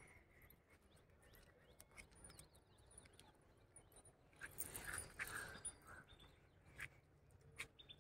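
Near silence: faint outdoor ambience with scattered light clicks and a brief rustle about halfway through.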